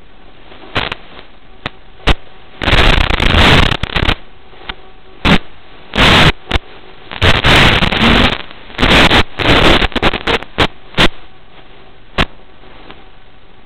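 Static from an analog FPV video receiver's audio channel: a low steady hiss broken by repeated loud bursts of noise, some short crackles and some over a second long, as the drone's video signal breaks up.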